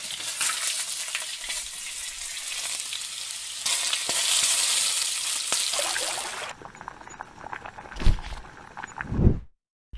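Butter sizzling in a hot pan, then a louder, denser frying sizzle as diced chicken and onion cook and are stirred with a spatula. Near the end the sizzle drops away and two dull thumps come about a second apart.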